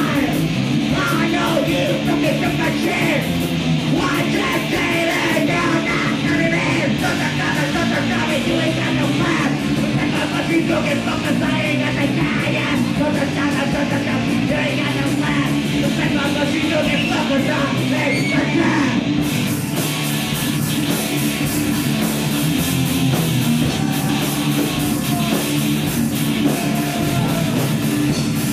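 Live rock band playing loud, with distorted electric guitars, bass and drums under shouted vocals. About two-thirds of the way in the cymbals get brighter.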